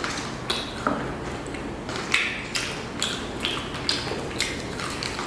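Crunchy chewing of crispy fried chicken: short, sharp crunches about twice a second.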